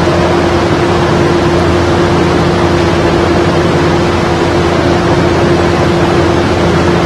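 Steady, loud hiss with a constant low hum tone under it, the background noise of an old lecture-hall recording, with no speech.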